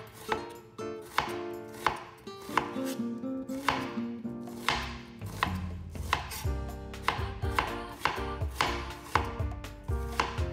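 Chef's knife slicing a half onion on a cutting board: a steady run of knife strikes through the onion onto the board, about two a second.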